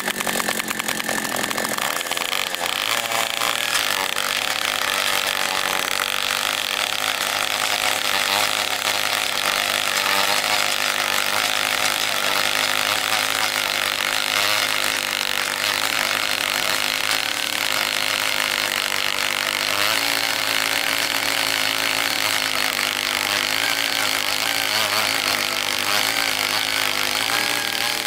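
Takyo TK-2PS earth auger's 54 cc two-stroke petrol engine running steadily at high speed as its 30 cm auger bit bores into stony ground.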